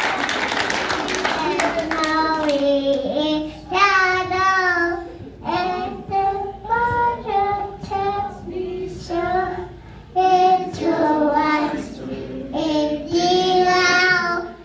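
Clapping that dies away in the first two seconds, then a young child singing alone into a hand-held microphone, a slow tune in short phrases with brief pauses between them.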